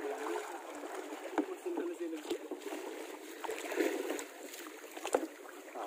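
Kayak paddles dipping and splashing in calm water, with a few sharp knocks along the way.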